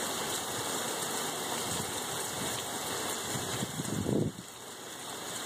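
Steady rain falling on a flooded street and running floodwater, an even hiss of water, with a brief low rushing swell about four seconds in.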